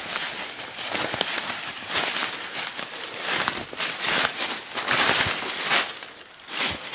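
Footsteps crunching through dry leaf litter and twigs, with brush rustling, in an uneven run of crackling steps.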